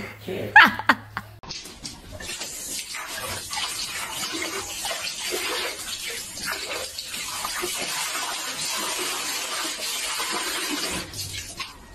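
Water running steadily from an outdoor PVC-pipe tap and splashing as a dog drinks from the stream, starting about a second and a half in.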